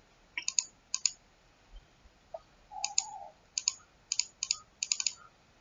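Computer mouse button clicking, about a dozen sharp clicks, most of them in quick pairs: double-clicks opening folders in a file dialog.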